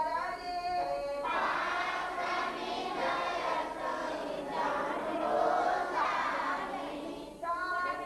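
A congregation of men, women and children singing a devotional bhakti song together. A single voice sings alone at the start and again near the end, and the group joins in between.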